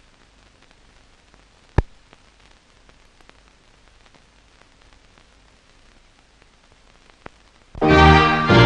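Faint hiss and crackle of an old film soundtrack, with a sharp pop about two seconds in. Near the end, orchestral music starts loudly.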